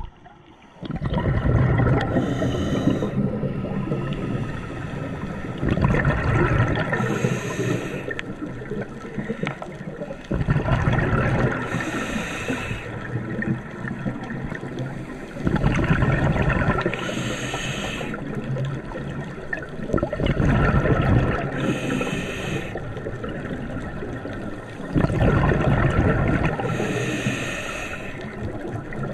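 Scuba diver's regulator breathing underwater: six breaths about five seconds apart, each a loud bubbling rush of exhaled air followed by the hiss of the regulator on the inhale.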